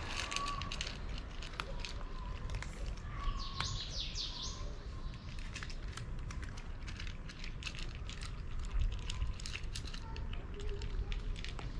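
Cats crunching dry kibble, an irregular run of small crisp clicks. A bird chirps a quick series of high sweeping notes about three to four and a half seconds in.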